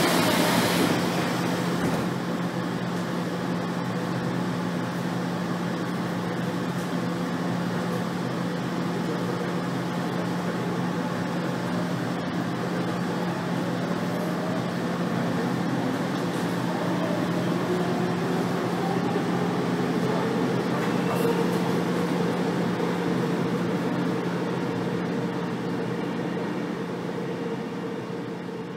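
Running noise heard inside a Seoul subway electric train car: a steady hum under a rushing noise. After a brief hiss at the start, a motor whine climbs in pitch over several seconds and then holds steady, as the train picks up speed. It fades out near the end.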